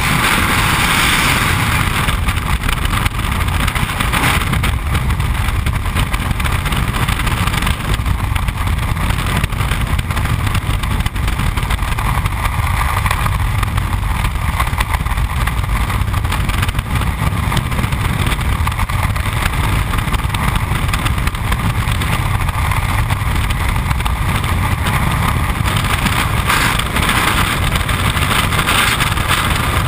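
Freefall wind rushing over a skydiver's camera microphone: a loud, steady rush of air that starts abruptly as the jumper leaves the aircraft.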